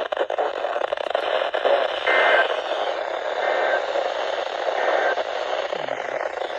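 NOAA Weather Radio broadcast hissing with static. Three short two-tone data bursts about a second apart cut through it: the SAME end-of-message code that closes the warning.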